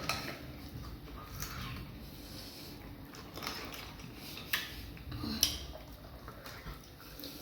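Eating sounds: a few light clicks and clinks of dishes over a low background while fufu and vegetable soup are eaten by hand.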